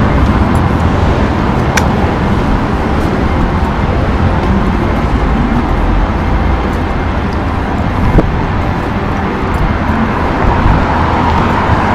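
Steady city road traffic, cars going by, with a sharp click about eight seconds in.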